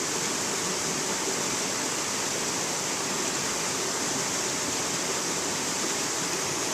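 Shallow mountain stream rushing and cascading over boulders, a steady, even rush of water.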